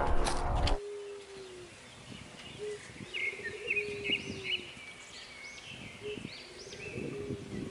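Birds calling: short, high, arching chirps repeated again and again, over low drawn-out notes that fall slightly. A music bed cuts off just under a second in.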